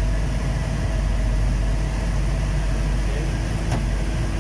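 Komatsu PC220-7 excavator's diesel engine running steadily, heard from inside the cab, with a faint steady whine over it and one brief click about three and a half seconds in.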